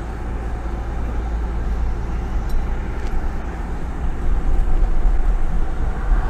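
Engine and road noise of a tow vehicle pulling a travel trailer, heard from inside the cab as it moves off. A steady low rumble that grows a little louder about four seconds in.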